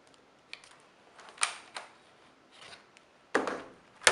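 Plastic clicks and knocks from an ASUS U31JG laptop as its battery is fitted into the bay and the laptop is turned over and set down on the table, with the loudest knocks near the end.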